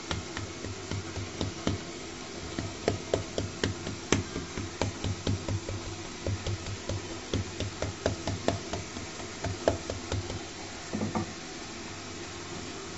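Wooden rolling pin tapping down on butter-layered puff pastry dough on a stone counter: a run of light knocks, about three a second, stopping near the end. The dough is being flattened gently in steps so the butter does not squeeze out.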